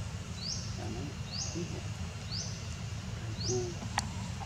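A high call repeated about once a second, each note sliding up quickly and then holding level, from a bird or insect in the surroundings, over a steady low background rumble. A single sharp click about four seconds in.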